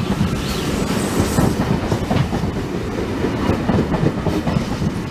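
NSW TrainLink V set double-deck electric train rolling past close by, with repeated clacks as its wheels run over the rail joints.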